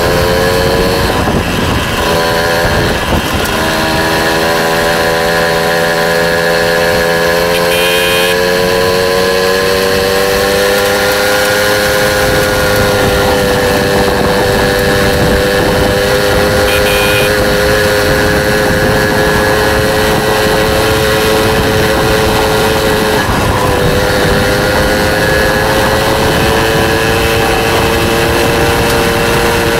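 Small motorbike engine running under way at a steady speed, its pitch climbing gently over the first dozen seconds, then holding, with a brief drop in revs about two-thirds of the way through.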